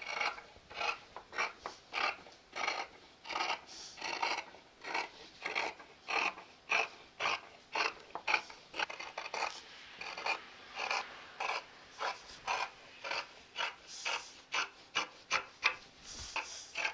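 Dressmaking shears cutting through a double layer of fabric: a steady run of snips, about two a second.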